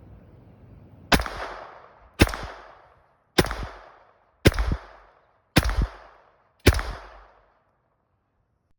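Colt 1908 Vest Pocket pistol firing six .25 ACP rounds, about one shot a second, each a sharp crack with a short echo trailing off.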